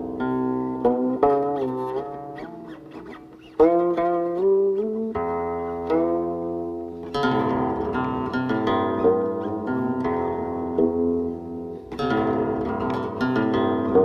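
Solo guqin, the Tang-dynasty qin Jiuxiao Huanpei, plucked: sliding pitch bends on the notes in the first few seconds, a fade, then a loud struck note about three and a half seconds in, and a denser run of plucked notes through the second half.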